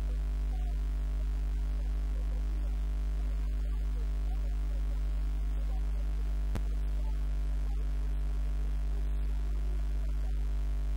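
Steady electrical mains hum: a loud low drone with a stack of overtones that never changes, with one faint click a little past halfway.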